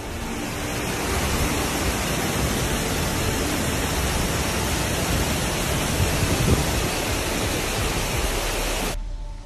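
Steady rushing of muddy floodwater pouring down a rock face in many cascades, cutting off abruptly near the end.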